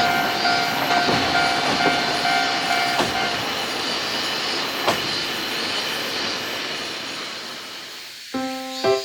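Ikoma Cable funicular car running past a level crossing with rhythmic wheel clatter on the rails and a steady ringing tone that stops about three seconds in, the rail noise then fading away. Music begins near the end.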